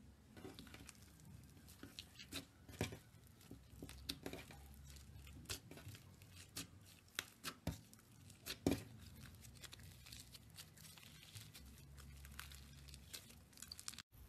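Thick, opaque slime being pressed, spread and folded by hand, giving off irregular sticky clicks and pops.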